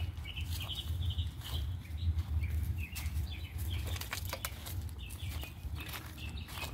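Small birds chirping in short, high, repeated phrases throughout, over a steady low rumble, with scattered light clicks and crunches from the dry leaf litter.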